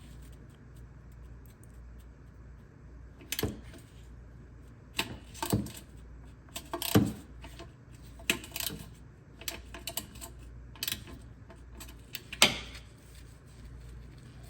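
Irregular metallic clicks and clinks of hand tools: a socket and wrench knocking against metal as they are fitted onto 12 mm exhaust bolts, with the sharpest clinks about halfway through and near the end.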